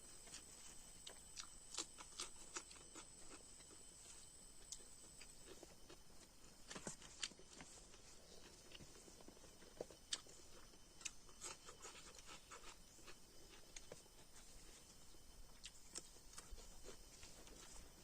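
Faint eating sounds: chewing with scattered small clicks and ticks, irregular and close by. A faint high steady whine runs under them for the first five seconds or so.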